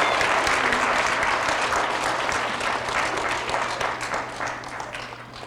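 Audience of schoolchildren applauding, the clapping fading away toward the end.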